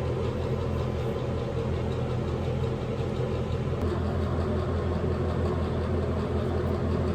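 An engine running steadily: a continuous low hum.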